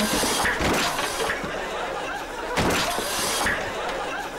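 Studio audience laughing, in two swells: one at the start and a second about two and a half seconds in.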